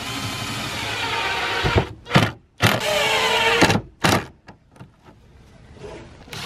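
Cordless driver running screws into the cedar cold frame's brackets: the motor whines steadily for about two seconds, then comes a short burst, a second longer run whose pitch shifts as the screw seats, and a last brief burst about four seconds in.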